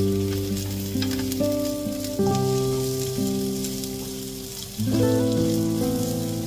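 Sliced onion and garlic sizzling and crackling in hot oil in a frying pan as a wooden spatula stirs them. Background music with held chords that change every second or two plays over it.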